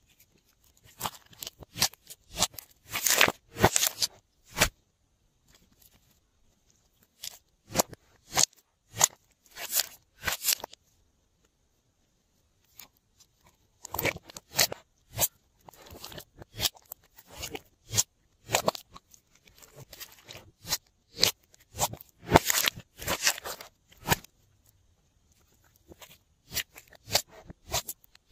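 Glossy slime being squeezed, stretched and pressed by hand in a glass dish: irregular sticky clicks, pops and crackles in clusters, with a few short pauses.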